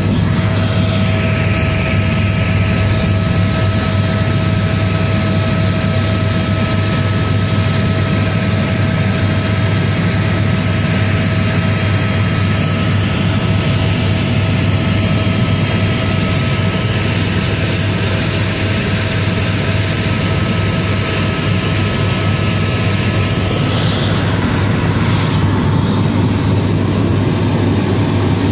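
Tour helicopter in steady cruise, heard from inside the cabin: a loud, even drone of rotor and engine with a strong low hum and a thin steady whine above it.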